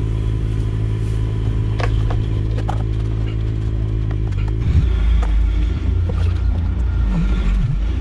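A steady engine drone, heavier and deeper from about halfway through, with a few short clicks and rustles of a cable and connector being handled.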